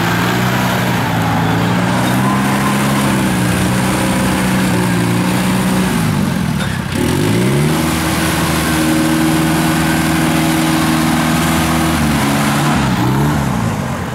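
Rice harvester engine running steadily, then falling away briefly about six seconds in and climbing to a higher, steady speed; the speed wavers up and down again near the end.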